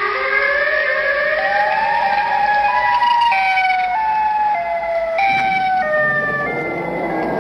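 Siren Head creature sound: several siren tones wailing together. They glide slowly upward at first, then jump between pitches in steps from about three seconds in, and a rough, noisy rumble joins them under the sirens about five seconds in.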